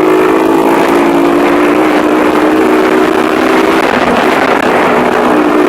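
Motorcycle engine and exhaust running loud at steady high revs while riding, the pitch sagging slightly and then changing about four seconds in.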